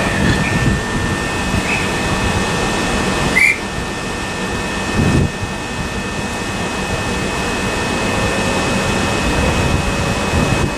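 Electric multiple-unit trains standing at a station platform, their onboard equipment giving a steady hum with a thin high whine over it. A few short high chirps come in the first few seconds.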